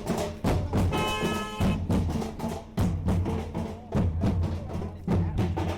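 Drum-heavy music: loud drum strikes in a steady beat, with a short held pitched tone about a second in.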